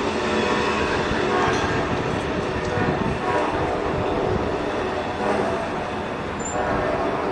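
Amtrak Silver Star passenger train running past, a steady rumble of wheels and cars on the rails.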